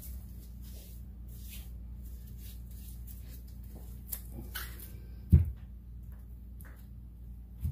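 Plastic acrylic paint bottles being moved and set down on a work table: a few light knocks, then one heavier thump about five seconds in and a smaller one near the end, over a steady low hum.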